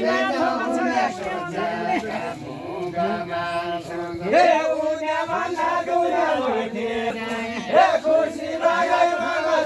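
A group of men singing a Deuda folk song together in a chant-like melody, holding long notes that bend in pitch.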